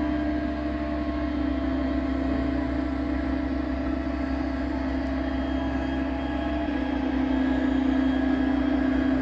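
H0-scale model electric locomotive, a DB class 152, running along the layout with a steady electric hum. The hum drops slightly in pitch and grows a little louder about two-thirds of the way through as the locomotive approaches.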